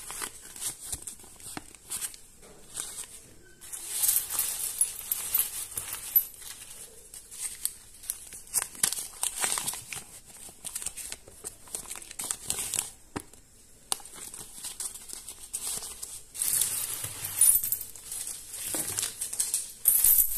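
Paper banknotes being unfolded and rustled by hand, crinkling in repeated bursts.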